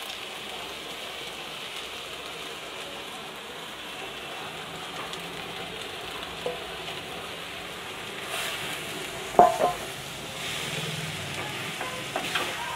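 Freshly added chopped spinach sizzling gently in oil with sautéed onions in a clay pot, while a wooden spatula stirs and scrapes the greens. A single short, ringing knock stands out about nine seconds in, with a few lighter knocks near the end.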